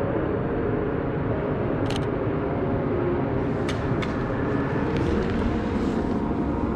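Steady rumble of city street traffic, with a few short sharp clicks about two seconds and four seconds in.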